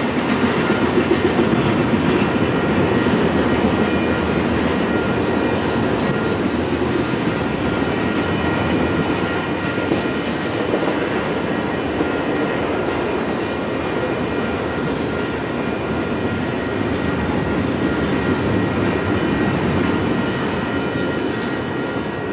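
Intermodal freight train of truck trailers on flatcars rolling past, a steady rumble of steel wheels on rail with faint steady high tones over it.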